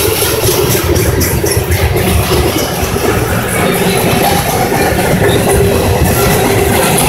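Freight cars of a passing CSX train (centerbeam flatcars and tank cars) rolling by close up: a loud, steady rumble of steel wheels on the rails, with a few clicks over the rail joints about a second in.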